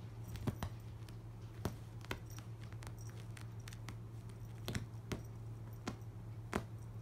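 A cat digging at a rug with its front paws: irregular soft scratches and clicks of claws catching on the fabric, over a steady low hum.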